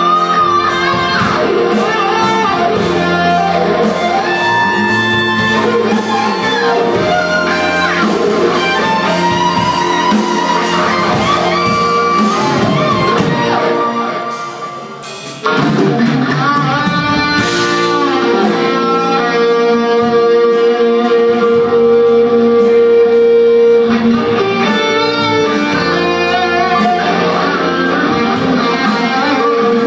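Live rock band playing: an electric lead guitar carries a sustained, singing melody with notes that bend up and down, over bass guitar and drums with steady cymbals. About halfway through the music thins out and drops in level for a moment, then comes back in full.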